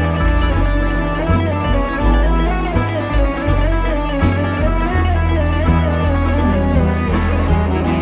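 Live bluegrass band playing an instrumental passage: picked acoustic guitar and banjo over upright bass, with a sustained, wavering lead line above the picking.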